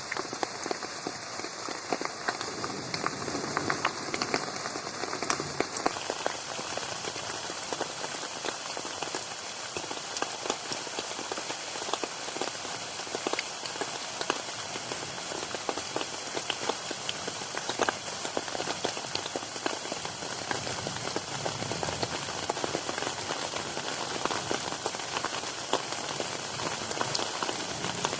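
Steady rain falling on a garden pond, a constant hiss dotted with many separate drop hits.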